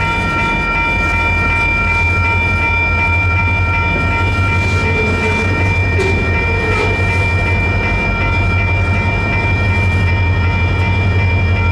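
Freight train rolling through a grade crossing with a steady low rumble, while the crossing's electronic bells ring steadily over it.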